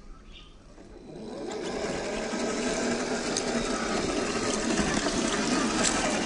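Electric drivetrain of an Axial SCX10 II RC crawler (550-size 21-turn motor and gearbox) whirring steadily, rising about a second in as the truck drives close past. Its tyres crunch over dry leaves and gravel, with a few sharp crackles.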